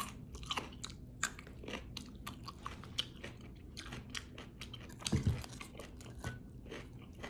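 A person chewing crunchy raw vegetables close to the microphone, many small crisp crunches one after another, with a lower soft sound about five seconds in.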